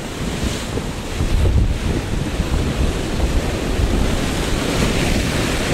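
Sea surf breaking and washing over shore rocks, with wind buffeting the microphone in gusts of low rumble.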